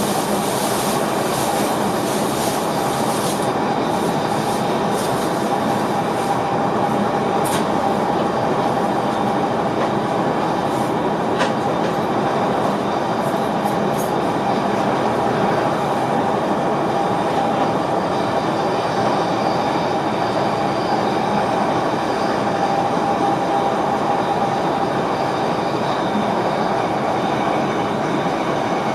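Steady running noise of an NS VIRM double-deck electric train heard inside the driver's cab: an even rush of wheel and track noise with a constant hum, and a couple of faint clicks.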